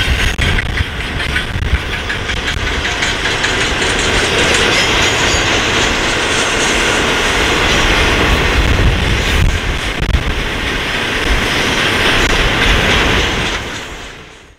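A long train of ore hopper cars rolling past, the steel wheels clicking steadily over the rail joints. The sound fades out near the end.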